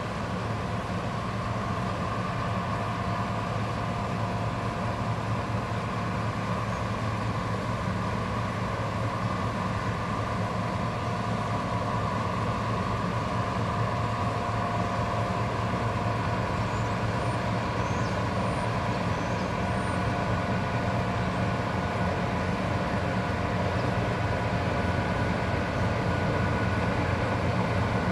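Tugboat's diesel engine running steadily under load as it moves a barge: an even, low drone with a steady hum, growing a little louder near the end.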